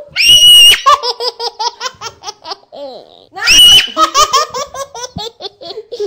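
A baby laughing hard: two high-pitched squeals, one at the start and one about three and a half seconds in, each followed by a quick run of short laughs, about five a second.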